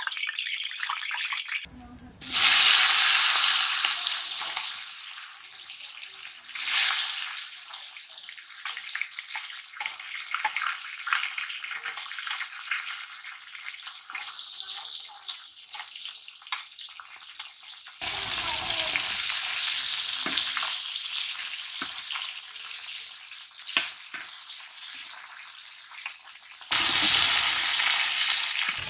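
Pieces of snakehead fish frying in hot oil in an iron wok, sizzling, with a metal spatula scraping and tapping as it stirs. The sizzling gets suddenly louder about two seconds in, again past the middle, and once more near the end.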